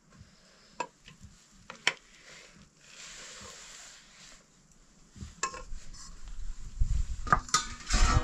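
Cooking on a pot or pan: metal utensils clink against it, a short sizzle about three seconds in, then a low rumble with several loud knocks near the end.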